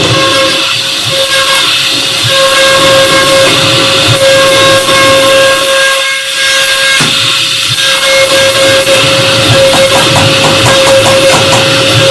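CNC router spindle running with a steady high whine and a noisy hiss as the cutter carves a pattern into a sheet.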